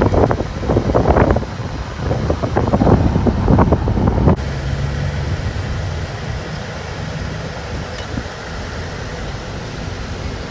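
Car running with a steady low hum. For the first four seconds or so an uneven rumble like wind on the microphone lies over it; this stops abruptly, leaving the steadier hum.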